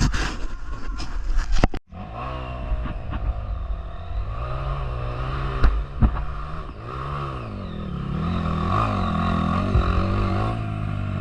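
Trail motorcycle engine revving up and down in repeated surges, settling into a steadier note near the end. It is preceded by loud clattering noise with sharp knocks that cuts off abruptly about two seconds in.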